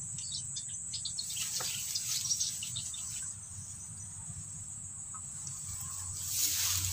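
Insects chirring outdoors, a steady high-pitched drone; a broad rustling noise swells near the end.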